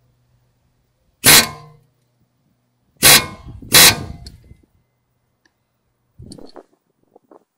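Hammer drill run in three short, loud bursts against a seized rear brake caliper guide pin, to hammer it loose.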